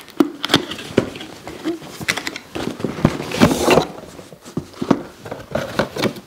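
Cardboard box and packaging handled during unboxing: a run of knocks and clicks, with a denser rustling and scraping of packaging about three seconds in.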